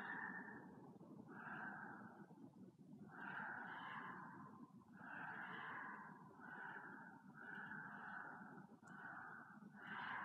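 A person breathing hard, faint quick breaths about once a second.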